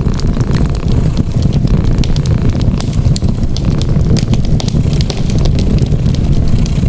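Wood fire crackling with frequent small sharp pops, layered over a cat's steady low purring.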